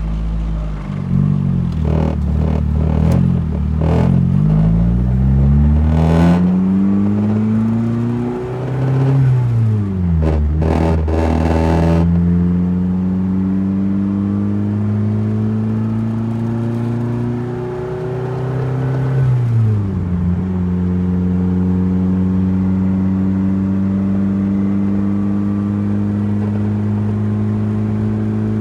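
Turbocharged Mazda Miata engine being revved with a clattery rattle for the first dozen seconds, then settling to a steady idle, with one more brief blip near 19 seconds. The owner wonders whether the rattle comes from low washer fluid.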